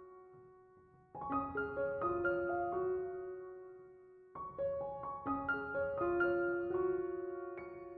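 Soft background piano music: short phrases of gently struck notes, each phrase fading away before the next begins, about a second in and again a little after four seconds.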